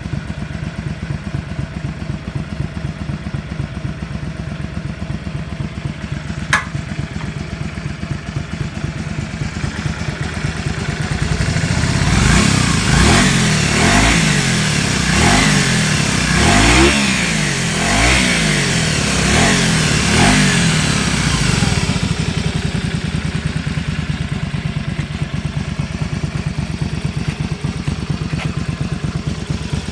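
Honda VT250 Spada's 250 cc V-twin engine idling, then revved in a string of quick throttle blips around the middle before settling back to a steady idle, with no abnormal engine noise. A single sharp click sounds a few seconds in.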